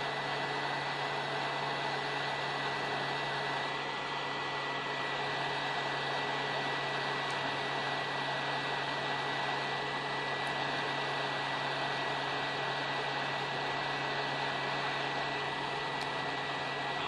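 Hot-air reflow station handpiece blowing a steady stream of hot air at 150 °C onto a PLA 3D print: an even rush of air with a thin high whine and a low hum from its fan.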